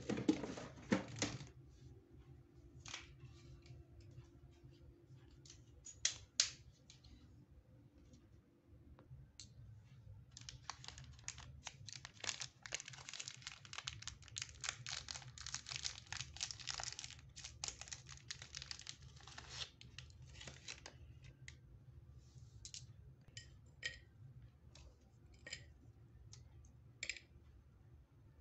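Plastic biscuit wrapper being torn open and crinkled by hand: a dense crackle lasting about ten seconds in the middle, with scattered light clicks and taps before and after it as the small packets and cups are handled.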